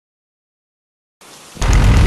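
Loud rumbling wind noise, strongest in the low end, cutting in suddenly after dead silence about a second and a half in.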